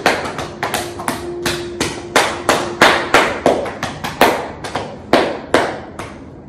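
Hands tapping along an outstretched leg in self-massage, quick palm slaps on the thigh and calf at about three a second, stopping near the end.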